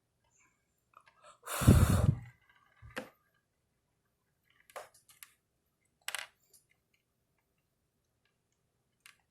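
Handling noise: a brief loud rush with a deep rumble about a second and a half in, then a few small, separate clicks and taps.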